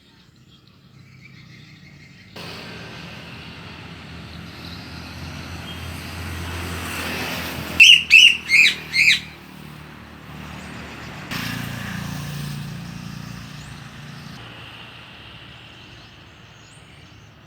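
A songbird gives one loud burst of four quick, sharp calls about eight seconds in, over the rushing noise of passing traffic that swells and fades twice.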